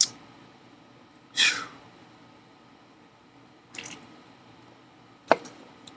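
Noisy slurping sips of soda from a can: a loud sip about a second and a half in and a fainter one near four seconds, with sharp clicks at the start and about five seconds in.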